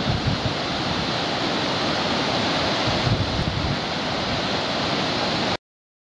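A broad, low river waterfall, about 210 m wide with a 12 m drop, giving a steady rushing of falling water. It cuts off suddenly near the end.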